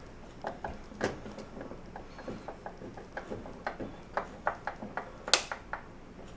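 Irregular clicks and light knocks of hand work on a drawer rail and its plastic bracket, with one louder knock about five seconds in.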